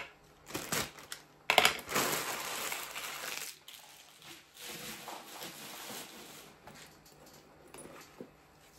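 Packaging being handled and crumpled: a loud crinkling rush about a second and a half in that lasts a couple of seconds, then softer rustling.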